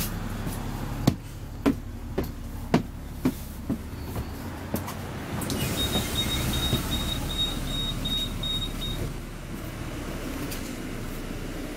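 Footsteps climbing the stairs of a moving double-decker bus, about two sharp steps a second, over the steady rumble of the bus in motion. After the steps, a rapid high-pitched beeping sounds for about three seconds.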